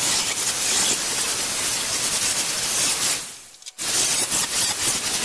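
Angle grinder grinding steel: a loud, steady grinding noise that breaks off for a moment about three seconds in and then resumes.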